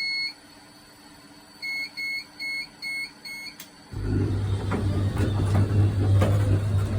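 Five short electronic beeps about two-fifths of a second apart, then a click. About four seconds in, a motor starts and runs with a loud low hum and a rattle of clicks: the HomeDome observatory dome's azimuth drive turning the dome.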